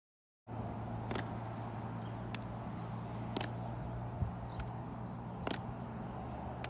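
Outdoor field ambience with a steady low hum that cuts in abruptly about half a second in, with a few sharp clicks and a dull thump about four seconds in as a softball is fielded into a leather glove. Faint short high chirps are scattered through it.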